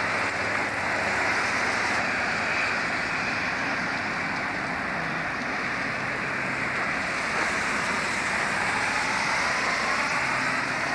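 Low hum of distant diesel locomotive engines under a steady hiss, as a lash-up of 48 class locomotives approaches with an empty coal train.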